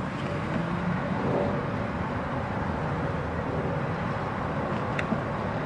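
Steady low rumble in the background while a child car-seat base is handled and pushed against the seat. About five seconds in there is one sharp click, typical of a LATCH connector snapping onto the vehicle's anchor.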